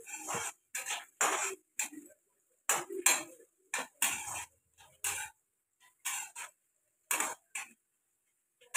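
Long metal spatula scraping and knocking against a metal kadhai while stirring frying onions: short strokes in an uneven rhythm, about two a second.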